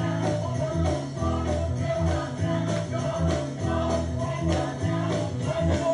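Gospel music: a choir singing over a steady bass beat, with a tambourine shaking throughout.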